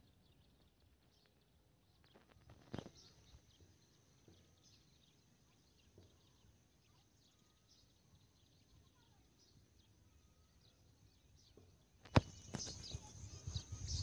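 Faint outdoor ambience with scattered small bird chirps and a click about three seconds in; about twelve seconds in, louder rustling and irregular thumps start.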